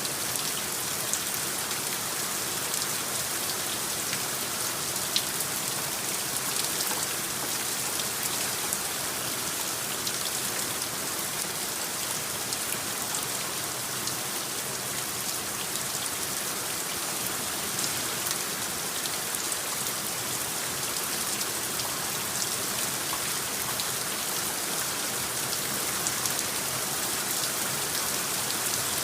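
Steady rain from a designed rain soundscape: an even hiss of falling rain with scattered sharp drop ticks.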